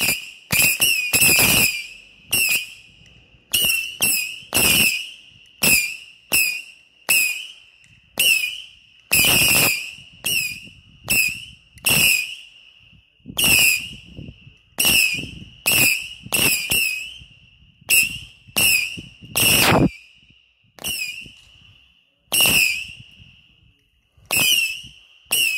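Consumer firework battery firing shot after shot, about one to two a second, each shot a bang with a high whistle as it climbs. The shots stop shortly before the end.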